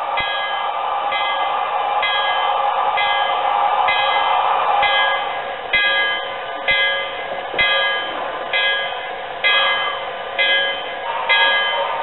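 Model steam locomotive's ESU sound decoder playing a locomotive bell, struck over and over at a steady pace through the model's small speaker, over a steady hiss that fades about halfway through.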